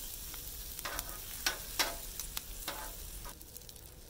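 Sliced steak, peppers and onions sizzling on a Blackstone flat-top griddle, with a metal spatula scraping and tapping the steel cooktop several times as the food is moved. The sizzle thins out near the end.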